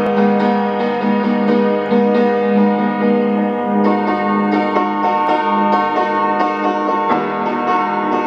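Piano music: a run of evenly spaced notes over held chords, steady throughout with a change of chord about four seconds in and again near the end.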